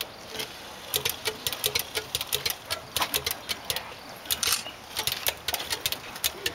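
Irregular rapid clicking and ticking from a custom steam-powered motorcycle's machinery as it is readied to run, with a short hiss about four and a half seconds in.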